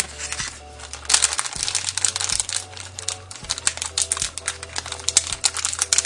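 Plastic blind-bag packet crinkling as it is handled and cut with scissors: a dense run of sharp crackles and clicks.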